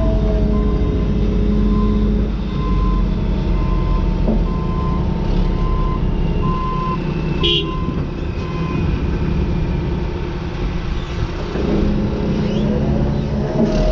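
John Deere 210G excavator's diesel engine and hydraulics running steadily under load as the loaded bucket swings. A backup alarm beeps at an even pitch about every two-thirds of a second through the first half, then stops; a single sharp knock comes about halfway through.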